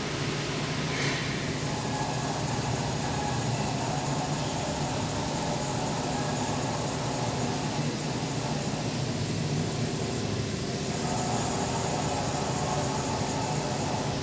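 Cincinnati Milacron Arrow 1250 vertical machining center jogging its table along the X axis: a steady machine hum with several held tones, which shift slightly about ten seconds in.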